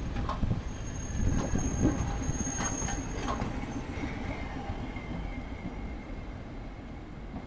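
Hankai Tramway streetcar 607 rolling slowly over street track, its wheels clacking over rail joints a few times and squealing thinly. The squeal shifts to a lower, steady tone about halfway through as the tram pulls away.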